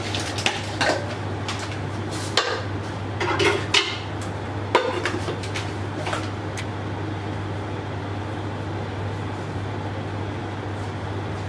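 Scattered clinks and knocks of kitchen utensils and containers, a few short strikes spread over the first six seconds or so, over a steady low hum.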